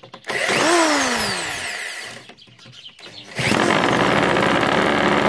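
A corded drill spins a bare two-stroke chainsaw engine, whining up and then winding down in pitch without the engine catching. About three and a half seconds in, after a short lull, the engine fires and keeps running steadily.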